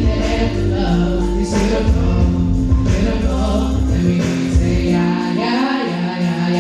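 Gospel music with a choir singing over a band with a heavy bass line; the bass drops out about four seconds in.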